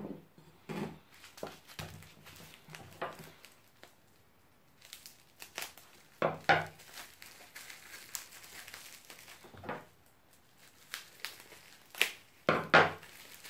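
Crinkly packing wrap being crumpled and pulled apart by hand to unwrap a small ceramic bonsai pot. It comes in irregular crinkling bursts, loudest about six seconds in and again near the end.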